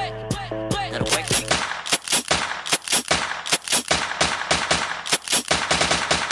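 Edited dance-medley music track: a short melodic phrase over a beat, then from about a second and a half in a fast, uneven string of sharp bangs.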